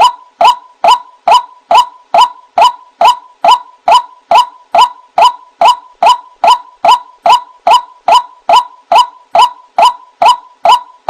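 White-breasted waterhen (ruak-ruak) 'wak' calls used as a bird-lure track. The short calls repeat at a perfectly even pace, a little over two a second.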